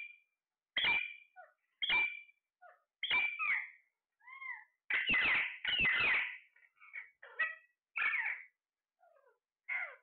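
Caged Alexandrine parakeets squawking: about a dozen loud, short calls come mostly about a second apart, with a few softer, shorter notes in between.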